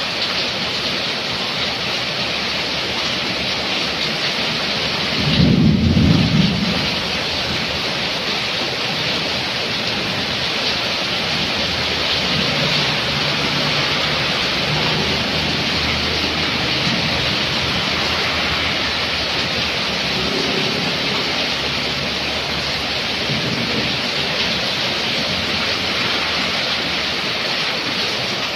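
Heavy rain pouring steadily onto a flooded street and awning. A car swishes through standing water around the middle. About five seconds in, a brief low rumble is the loudest sound.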